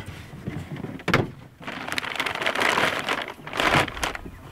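Gear being handled in the rear tray of a side-by-side utility vehicle: a sharp knock about a second in, then about two seconds of rustling, and another knock near the end.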